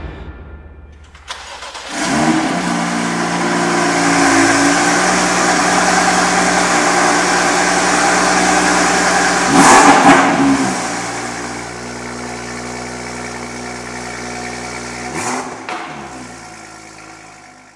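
BMW M2's turbocharged straight-six starting about a second in and settling into a steady fast idle. It is blipped sharply about ten seconds in and briefly again near the end, then fades out.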